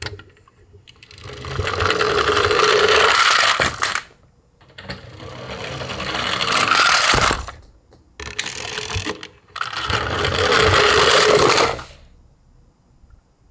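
Toy garbage trucks rolling down a plywood ramp, their plastic wheels rumbling on the wood. Three runs, each growing louder as the trucks pick up speed and stopping abruptly.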